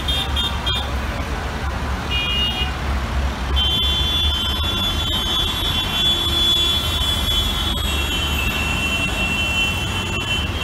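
Heavy road traffic of cars, trucks, buses, motorcycles and auto-rickshaws, a steady low rumble of engines. Vehicle horns honk over it: short honks in the first few seconds, then a long, continuous horn sound from about a third of the way in until near the end.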